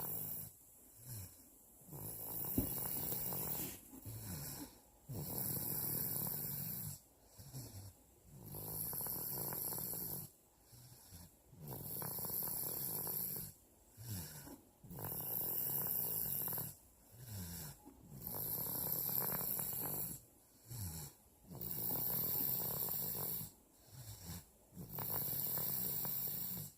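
A two-year-old child snoring in sleep: a long snore on each breath, about every three seconds, regular throughout, with short quieter breath sounds between the snores.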